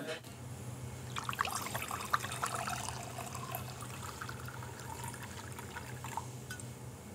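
Red wine poured into a wine glass: a trickling splash starting about a second in and stopping about six seconds in, over a steady low hum.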